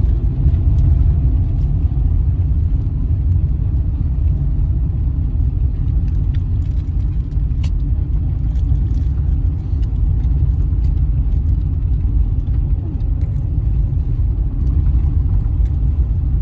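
Steady low road rumble and engine hum of a car driving, heard from inside the moving car, with a few faint ticks over it.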